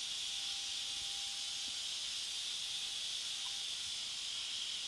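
Steam hissing steadily out of the pressure-release valve of an Instant Pot Duo Crisp electric pressure cooker while its release button is held down, venting the pressure after cooking.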